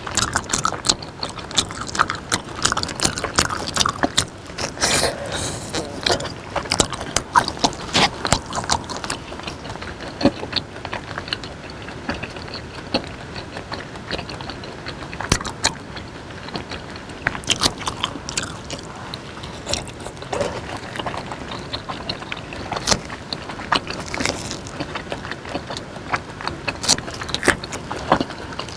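Close-miked mouth sounds of chewing raw beef slices dipped in chili sauce: irregular wet smacks and clicks throughout.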